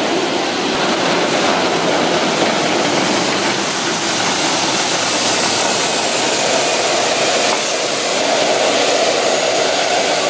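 Tank driving close by: loud, steady engine and running noise that goes on without a break.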